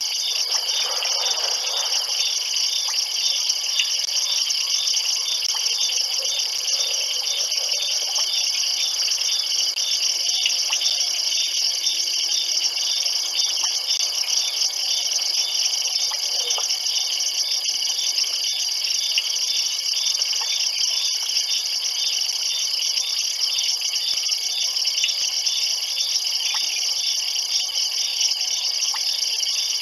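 A night-time chorus of crickets and other insects: a steady, high-pitched trilling with a regular pulse running through it.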